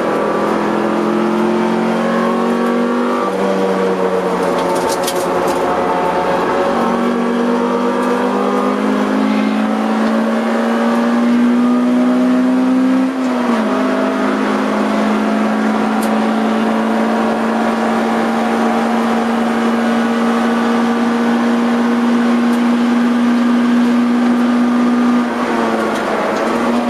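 Honda CR-X EE8's 1.6-litre DOHC VTEC four-cylinder engine heard from inside the cabin under hard track driving. The engine note climbs slowly, dips briefly about halfway through, holds a steady high pitch for a long stretch, then drops as the driver lifts off near the end.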